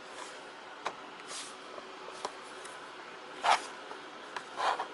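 A few light clicks and taps of plastic laptop parts being handled and fitted back together over a steady hiss, with a louder knock about three and a half seconds in and a short cluster of clicks near the end.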